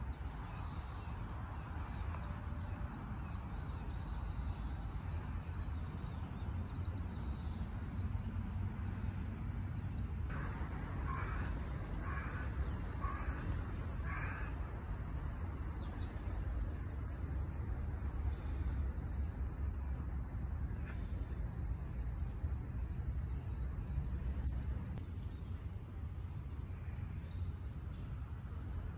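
A crow cawing about five times in a row, a little over a third of the way in, over high chirps of small birds and a steady low rumble.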